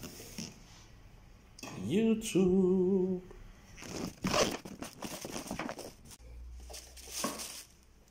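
Cardboard gift box being opened by hand: the lid scraping free and paper rustling in short bursts. About two seconds in, a man's voice gives a rising, then wavering sung note for about a second.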